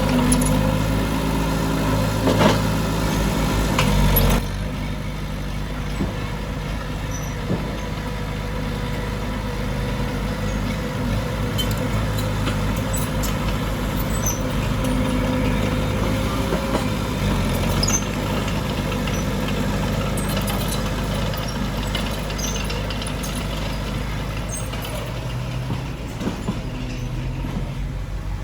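Heavy diesel earthmoving machinery running steadily, with scattered clanks and clicks. About four seconds in, the sound drops and turns duller, then runs on with the engine pitch shifting slightly.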